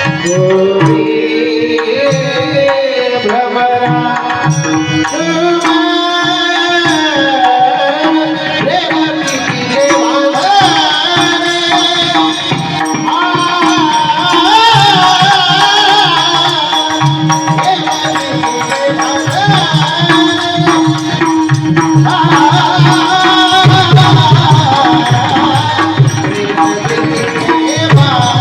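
A man singing a long, ornamented devotional kirtan melody with sliding pitch, over a steady drone note and hand-drum accompaniment.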